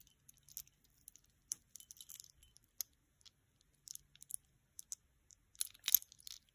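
Heavy silver-tone metal chain necklace with oval pendants and ball beads clinking and jangling as it is turned over in the hands: scattered light clinks, with a louder cluster near the end.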